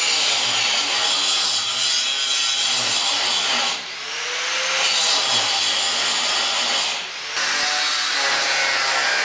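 Angle grinder grinding through old weld seams on a steel trailer frame. It runs loud and continuous, easing off briefly twice, about 4 and 7 seconds in, with its pitch rising each time before it bites into the steel again.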